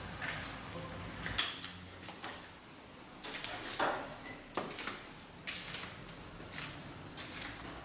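Irregular footsteps and shoe scuffs on a hard stone floor and stairs, a short scrape every half second to a second.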